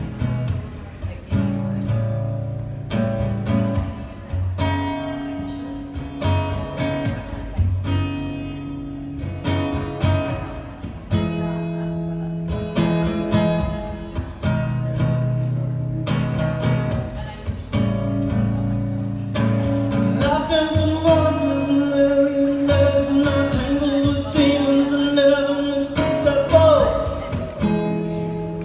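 Acoustic guitar strummed in a steady rhythm. A man's singing voice joins over it about two-thirds of the way through.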